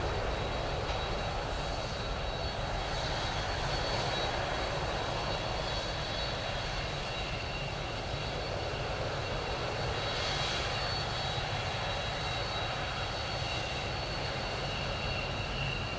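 Airbus A310-304 MRTT's twin turbofan engines running at take-off power as the airliner begins its take-off roll: a steady broad jet rush with a high, even whine above it.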